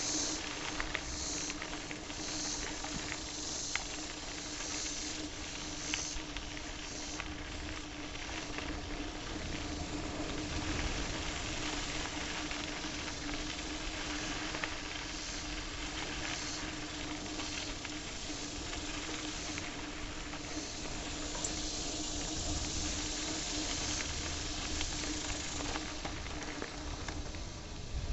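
Mountain bike tyres rolling over a dirt and gravel trail: a steady hiss of grit with scattered small ticks, over a steady low hum.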